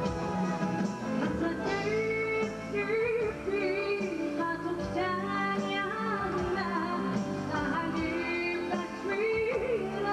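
Live Assyrian pop music from a band on stage: a bending, ornamented melody line over a steady accompaniment.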